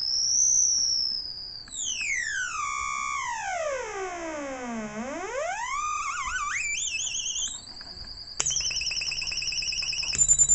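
MFOS Alien Screamer noise box, a small DIY analog synth, sounding a single electronic tone that the player sweeps by knob, sliding from a high squeal down to a low pitch and back up with a wobble from its modulation. About eight seconds in it switches suddenly to a high, fast-warbling tone with a low hum underneath.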